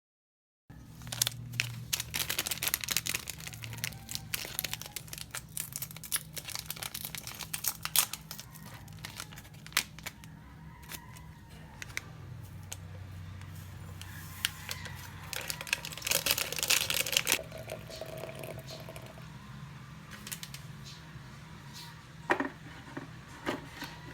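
Close crinkling and rustling made up of many irregular crackles, with a denser flurry about sixteen seconds in and only scattered clicks after it.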